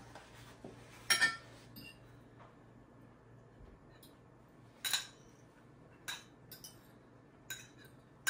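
Cutlery clinking against plates and dishes as food is served out: about five short, sharp clinks with a brief ring, the loudest about a second in.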